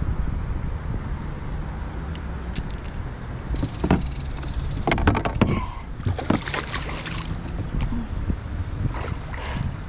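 A steady low rumble of wind and water around a kayak, with several short clusters of clicks and knocks from the boat and fishing gear while a fish is being fought on rod and reel.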